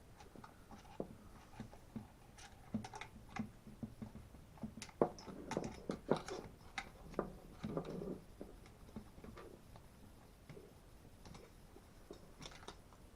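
Scattered light clicks and taps of plastic and metal chainsaw parts being handled while the ignition coil and its cable are worked free of the housing. The clicks come thickest in the first two thirds and grow sparse after that.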